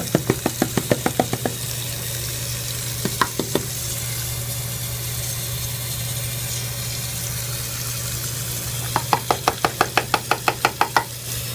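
Bathroom faucet running steadily into a sink while a plastic Elmer's School Glue bottle, partly filled with water to rinse out the glue, is shaken, sloshing in quick rhythmic bursts of about seven a second: at the start, briefly about three seconds in, and again near the end.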